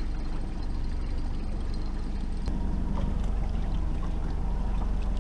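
Boat outboard motor running steadily at trolling speed, a low even drone.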